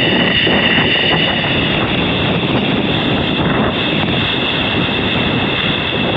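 Ocean surf washing and breaking around pier pilings, heard close to the water, with wind rumbling on the microphone.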